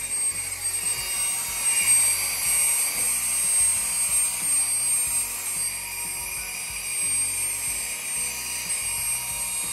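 Handheld vacuum cleaner running with a steady high-pitched whine, sucking dust out of a manicure dust collector's housing through a crevice nozzle. It starts abruptly at the beginning.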